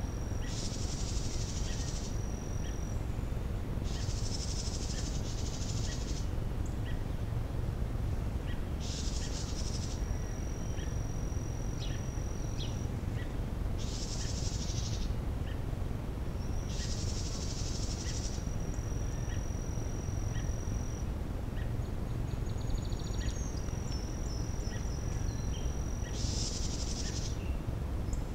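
Summer outdoor ambience of insects and birds. High buzzy calls about a second or two long repeat every few seconds, a long steady high trill runs between them, and short chirps are scattered throughout. A steady low rumble sits underneath everything.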